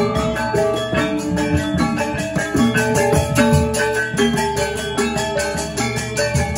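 Balinese gamelan ensemble playing: bronze metallophones struck in a fast, even pulse over many held, ringing tones.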